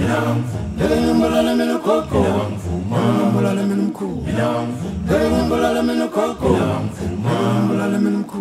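Unaccompanied vocal music: a group of voices singing a cappella in phrases about two seconds long, over a held low note.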